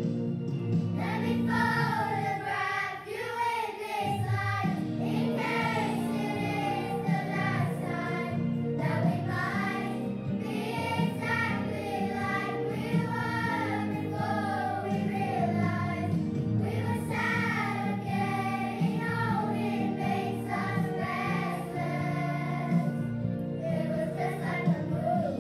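Children's choir singing together in unison, a continuous sung melody.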